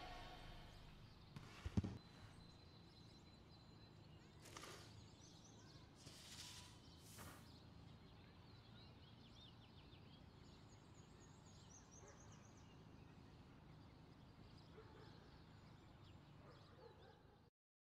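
Near silence: faint outdoor background with a few soft knocks in the first seconds and faint high chirping in the middle. It drops to dead silence near the end.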